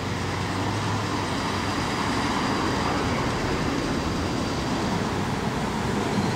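Melbourne E Class low-floor tram running slowly through a curve on street track, over steady city traffic noise; a faint high whine fades out about five seconds in.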